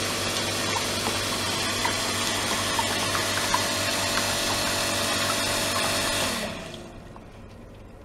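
Electric circulation pump running steadily, with a motor hum over rushing, splashing water as it pumps water through hoses into a plastic tub. About six seconds in the pump is switched off: the hum winds down and the water noise fades to a faint hiss.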